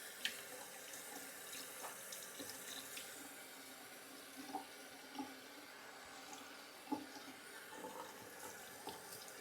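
Faint water running from a tap into a sink, with a few light knocks and clicks of things being handled.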